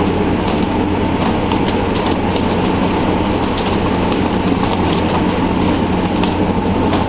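Steady drone of a fishing vessel's engine and machinery under the hiss of the water sprays and the sea along the hull. Frequent irregular sharp knocks and clacks run over it.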